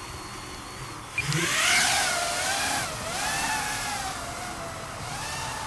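EMAX Babyhawk 2S brushless micro quadcopter's motors and propellers: a thin high whine at idle, then about a second in they spin up hard as it lifts off. The whine keeps rising and falling in pitch with the throttle as it flies.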